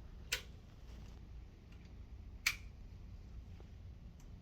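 Two short sharp clicks about two seconds apart over a faint low hum.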